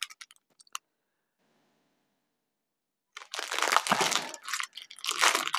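A few faint clicks, then from about three seconds in, small plastic bags of diamond painting drills crinkling and rustling as they are handled.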